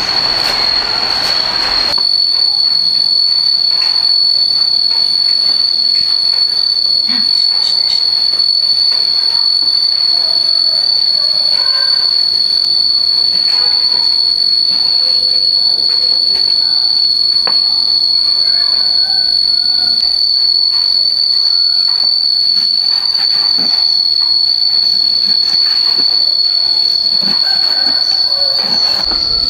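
An insect's loud, steady high-pitched drone that never breaks, with a rushing noise underneath that stops about two seconds in and faint scattered clicks later.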